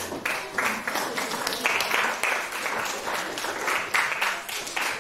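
Audience applauding: many hands clapping in a dense patter that breaks out suddenly at the start.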